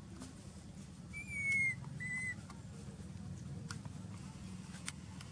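Two short, high, whistle-like calls about a second in, the first slightly falling and the louder, the second level: the coo calls of a baby macaque. A steady low background rumble and a couple of faint clicks lie underneath.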